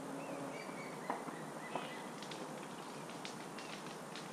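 Outdoor ambience: a steady background hiss with scattered short ticks and a few faint high chirps.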